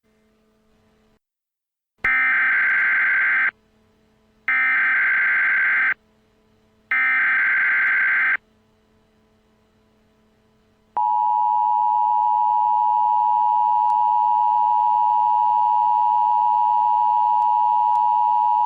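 Emergency Alert System header tones: three identical bursts of buzzing digital data, each about a second and a half long, followed about eleven seconds in by the long, steady two-tone attention signal. Together they announce that an emergency alert message follows.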